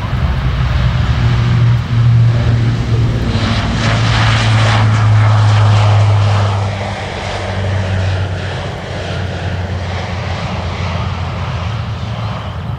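C-130J Hercules' four Rolls-Royce AE 2100 turboprops at take-off power: a loud, steady low propeller drone as the aircraft lifts off and climbs past. The sound swells to its loudest about four to six seconds in, then eases and drops slightly in pitch as it climbs away.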